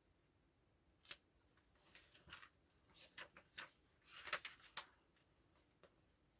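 Comic books being handled: a string of faint, short paper rustles and light taps from about a second in until near the end.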